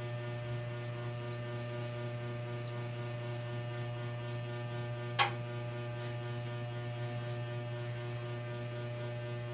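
Steady low electrical mains hum with a stack of fainter higher tones above it. A single sharp click comes about five seconds in.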